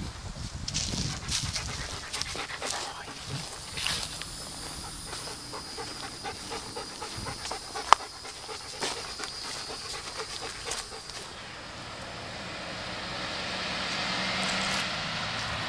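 German Shepherd panting and scuffing about in dry pine straw and leaves, with scattered short rustles and one sharp click about eight seconds in. Road traffic noise swells up over the last few seconds.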